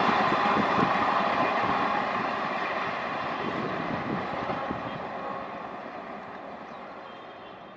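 Indian Railways passenger train rolling along the track, its wheel-and-rail rumble fading steadily as it moves away.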